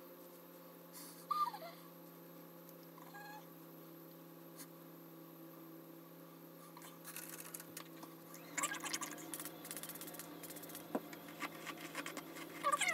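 Hair being handled and brushed: a dry, scratchy rustle that starts about two-thirds of the way in and grows busier toward the end. Earlier, a couple of short high squeaks that slide in pitch stand over a steady low hum.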